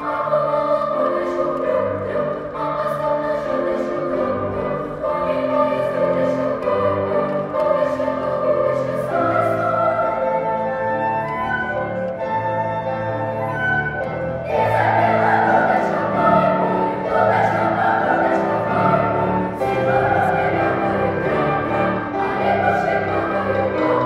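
Girls' children's choir singing a song, with a low instrumental accompaniment underneath; the singing swells louder and fuller about halfway through.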